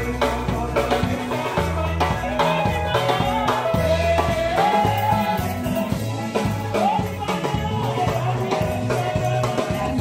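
Live seben (Congolese soukous-style dance music) played by a band: electric bass driving a fast, busy groove over a drum kit, with voices singing over it.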